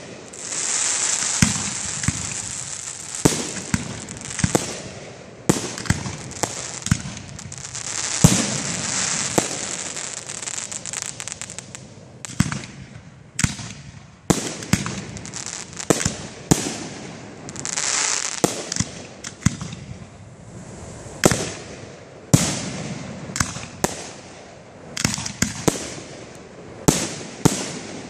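Fireworks display: aerial shells bursting one after another in a quick series of sharp bangs, with stretches of high crackling hiss between them.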